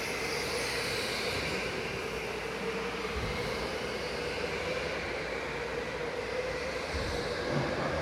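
Electric go-kart running at race pace: a steady motor whine over a continuous rush of tyre and air noise, its higher tones drifting slightly with speed.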